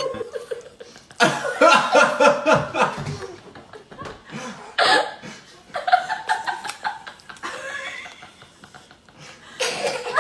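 Laughter, coming in repeated short bursts of chuckling: about a second in, briefly near five seconds, again a little later and once more near the end.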